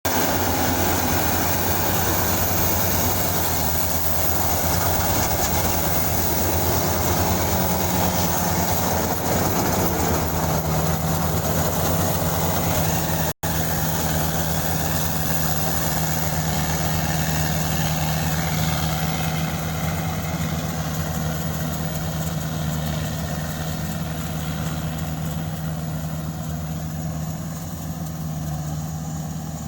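Engine of a mini rice combine harvester running steadily. The sound cuts out for an instant about midway.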